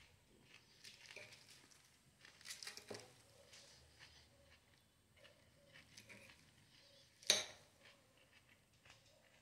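Faint clinks and rustles of a fork picking salad leaves from a plate, with one sharper clink of the fork against the plate about seven seconds in.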